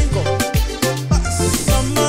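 African pop song playing without singing: a steady drum beat over a bassline and steady keyboard-like notes.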